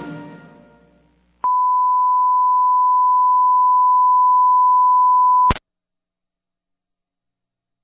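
The tail of the closing music fades out, then a television station's steady test-pattern tone starts about a second and a half in and holds for about four seconds. It cuts off abruptly with a click as the analog signal goes off the air.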